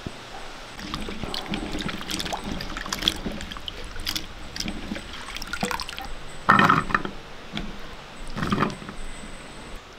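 Water sloshing and splashing in a vessel, with many small clicks and knocks. Two louder splashes come about six and a half and eight and a half seconds in.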